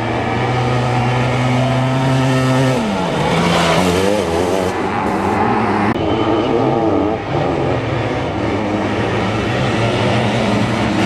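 Sidecar motocross outfits' engines racing: one engine holds steady at high revs, then drops in pitch about three seconds in, followed by several engines revving up and down as the outfits pass.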